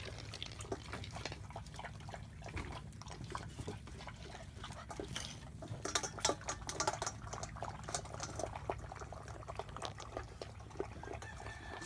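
German Shepherd puppies lapping water from a stainless steel bowl, a fast run of small wet clicks and slurps, over a steady low hum.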